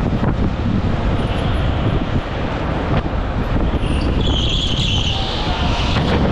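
Go-kart driven at racing speed, heard from an onboard camera: a steady, dense rumble of the kart with wind on the microphone. A high squeal from the tyres comes in about four seconds in as the kart corners.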